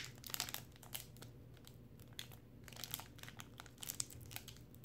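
Foil trading-card pack wrapper crinkling and crackling in faint, irregular bursts as fingers pick at and tear its sealed edge, a pack that is tough to open by hand.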